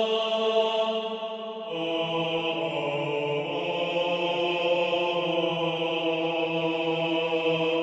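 Background music of slow, sustained chant-like chords, moving to a new chord about two seconds in.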